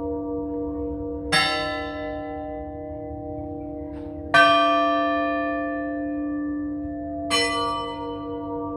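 Church bell tolling slowly: three strikes about three seconds apart, each ringing on with a long fading hum between strikes. It is the slow, mournful toll rung on Good Friday.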